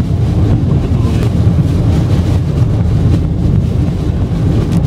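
Steady low rumble inside a car driving on a rain-soaked highway: tyre and road noise on the wet road, with rain on the car.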